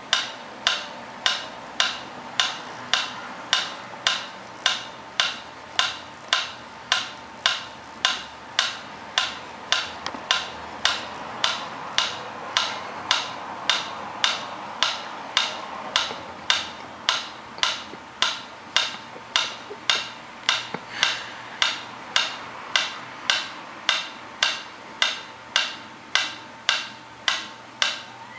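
Sharp, evenly spaced clicks, about two a second, like a clock or metronome ticking, over a faint steady high-pitched tone.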